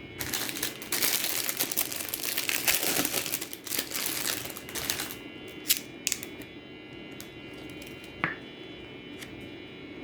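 Crinkling and rustling of thin plastic or foil card packaging handled by hand for about five seconds, followed by a couple of light clicks and one soft knock.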